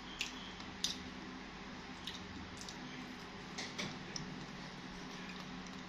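Faint room sound: a steady low hum with about half a dozen small clicks and taps scattered through it, the sharpest a little under a second in.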